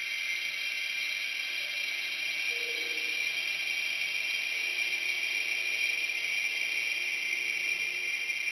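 Abstract sound-art recording: a steady, dense, high-pitched hiss-like chattering texture at an even level, with faint low tones that come and go underneath.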